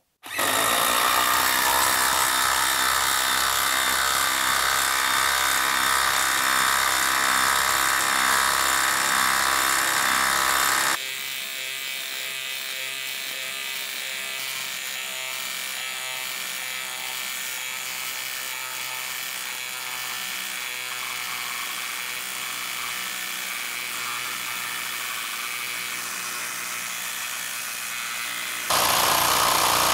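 Craftsman brushless impact driver hammering a long 5/8 by 8-inch lag bolt into wood under heavy load, played back four times faster as a steady mechanical buzz. It drops to a quieter level about eleven seconds in and comes back loud near the end.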